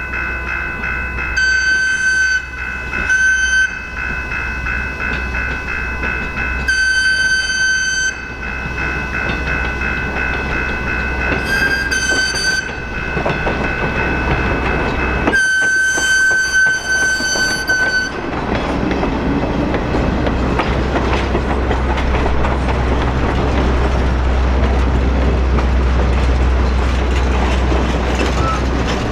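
Steam whistle of New Hope & Ivyland No. 40, a 2-8-0 Consolidation steam locomotive, sounding five blasts for the Holicong Road crossing, the last one the longest. The train then rolls past with a steady rumble and wheel clatter.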